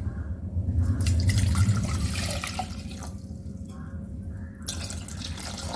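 Water splashing and dripping in a stainless steel saucepan just after it has been poured in, with a few small sharp drips or taps against the steel.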